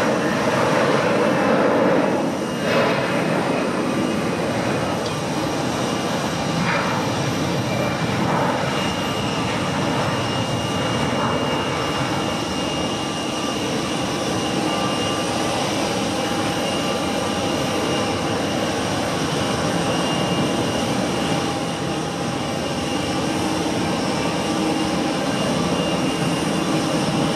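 Airbus A320 twin jet engines at takeoff thrust, a loud, steady rushing noise with a faint steady whine in it, through the takeoff roll, lift-off and climb-out.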